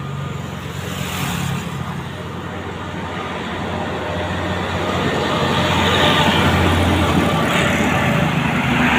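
Heavy road traffic passing close by: a low engine drone with tyre and road noise, growing louder over the first several seconds as a vehicle comes past and staying loud near the end.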